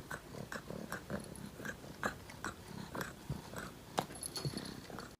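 A pet animal making a quick run of short, separate sounds, about two to three a second.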